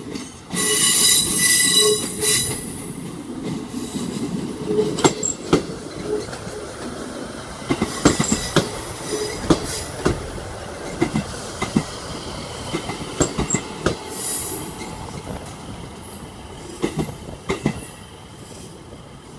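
Class 158 diesel multiple unit pulling out of a station. A loud, high wheel squeal comes about a second in and lasts a couple of seconds, then the wheels clack and knock over rail joints and pointwork, with a fainter squeal around the middle. The sound eases off near the end.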